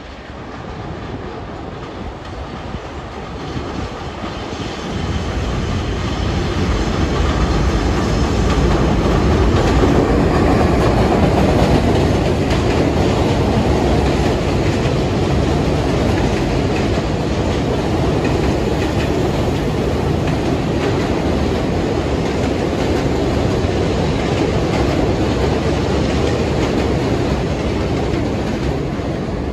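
New York City subway train running on the elevated West End line at 18th Avenue station: a heavy rolling rumble of wheels on rail that builds over the first several seconds as the train comes in, then holds steady.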